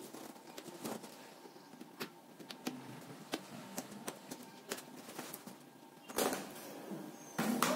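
A key scraping along packing tape on a cardboard box, slitting it open with scattered small scratches and clicks. A longer, louder scrape comes about six seconds in.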